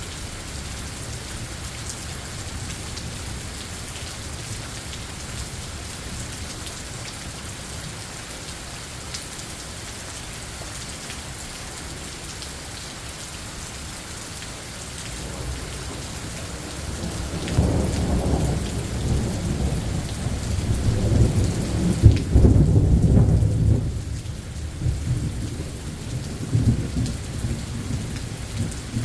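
Steady rain falling, with a roll of thunder that builds about two-thirds of the way through, peaks in a sharp crack and then rumbles away.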